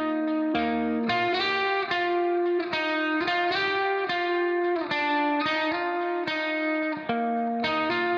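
Background instrumental music led by a guitar, playing a steady run of plucked chords and notes that change every half second to a second.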